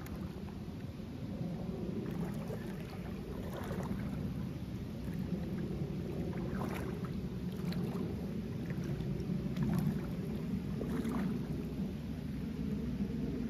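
Shallow river water sloshing and splashing as a corgi wades through it, over a steady low rush of water, with a few sharper splashes scattered through.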